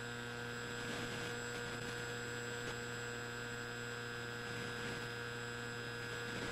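Steady electrical hum with several fixed, high-pitched whine tones above it, unchanging throughout.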